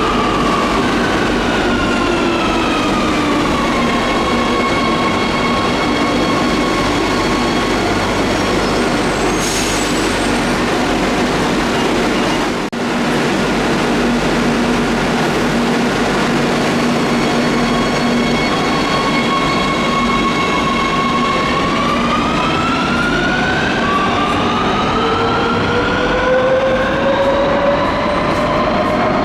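Madrid Metro electric train's traction motors whining over steady rail and running noise: the whine falls in pitch as the train slows, holds steady for a long stretch, then climbs again as it speeds up.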